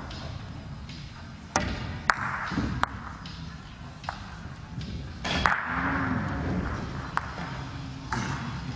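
Pool balls clicking: the cue tip strikes the cue ball, then the balls clack sharply against each other, about six separate clicks spread over several seconds, over the steady murmur of a large hall.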